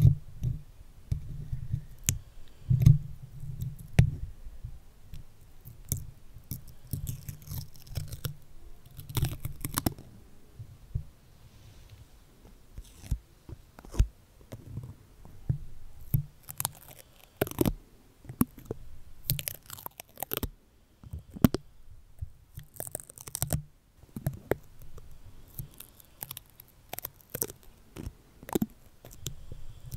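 Stickers being pressed onto and peeled off a microphone right at its capsule: irregular crackles and clicks, low handling thumps on the mic body, and a few brief longer stretches of peeling noise.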